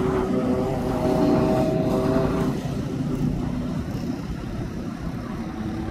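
Road traffic passing: a vehicle engine's steady droning hum that fades after about two and a half seconds, over a continuous low rumble.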